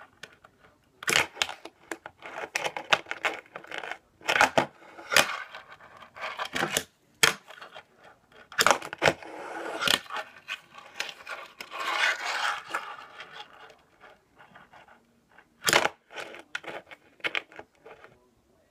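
Fingerboard tricks on a tabletop: sharp clacks as the small deck and trucks pop and land on the table and a stacked-board ledge, with short stretches of the wheels rolling and the trucks scraping in between.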